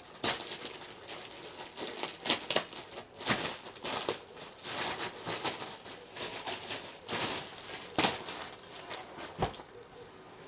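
Plastic delivery packaging crinkling and rustling unevenly as a bag is pulled out of it, with a few louder crackles.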